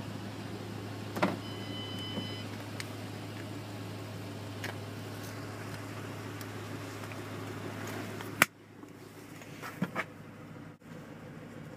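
A steady low hum with a few light clicks and a short beep in the first seconds. About eight and a half seconds in, a 2007 Ford Mustang GT's door is shut with one sharp loud knock, and the hum cuts off, leaving a quieter, closed-in sound with a couple of soft knocks.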